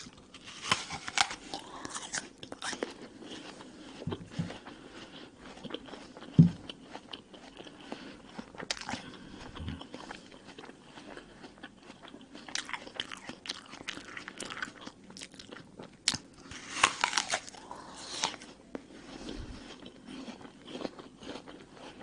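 Bites into a crisp red apple, close to the microphone: sharp crunching at the start and in two clusters in the second half, with wet chewing between. One short low thump about a third of the way through is the loudest sound.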